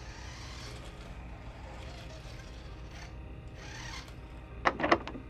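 A low steady hum with a couple of soft rustling swishes, then near the end a quick cluster of three or four sharp knocks: a locked door being tried and rattling.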